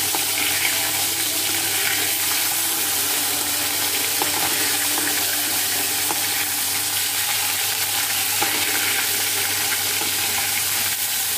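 Fish pieces frying in oil in a steel kadhai, a steady sizzle, with a metal spatula scraping and tapping against the pan now and then as the pieces are turned.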